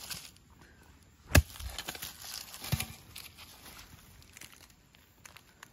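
A small hand hoe chopping once into hard red soil about a second and a half in, followed by scraping and crumbling of dirt as a clod is pried loose, then quieter handling of the soil.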